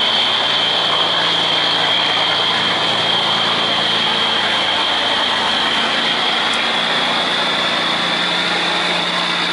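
A cargo barge's diesel engine running hard as it pushes through a sluice gate, a loud steady drone with a high whine that rises slightly in pitch.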